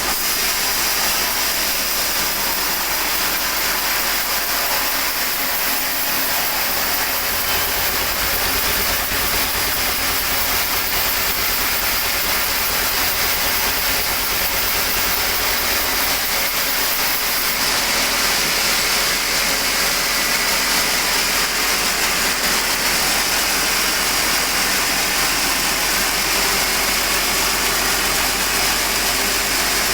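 Sawmill machinery running steadily, an engine-like hum under a constant hiss. The low hum grows stronger for several seconds in the middle.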